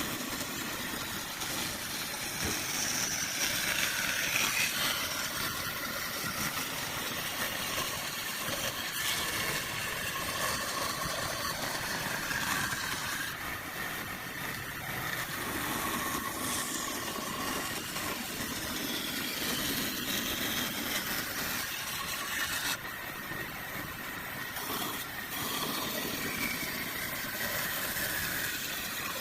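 A motor running steadily, with a light rattle.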